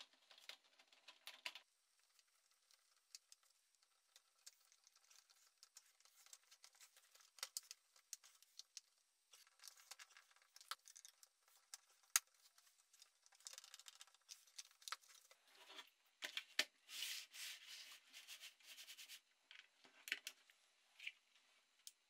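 Faint, irregular clicks, taps and scrapes of a 3D-printed plastic fan case being handled: the grille set in place and small screws driven in with a screwdriver, with a longer stretch of scraping near the end.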